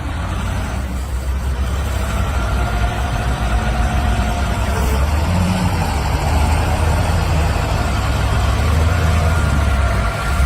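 An engine running steadily, its sound mostly low-pitched.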